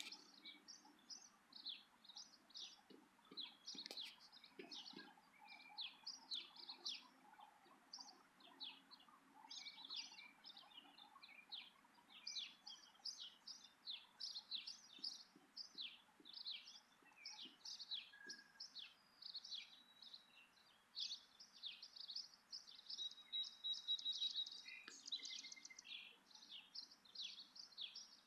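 Small wild birds chirping faintly in quick, continuous short high calls, with a brief trill near the end.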